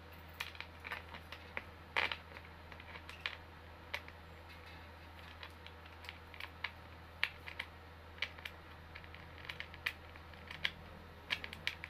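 Light, irregular clicks and taps of office chair parts being handled during assembly, with a louder knock about two seconds in.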